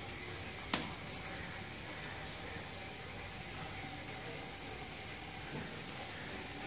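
Steady background hiss with one sharp click about a second in and two softer clicks just after it.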